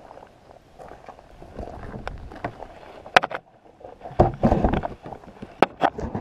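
Gear being handled and loaded into a car: scattered sharp clicks, then a loud run of thumps and rubbing about four seconds in, and a few more clicks as a plastic cooler is pushed into place.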